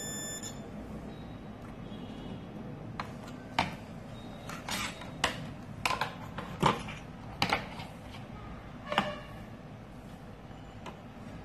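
A multimeter's continuity buzzer beeping briefly at the start while the meter reads near zero, the sign of a short on the line being probed. Then a string of sharp clicks and knocks as a laptop motherboard is handled, turned over and set back down on the bench.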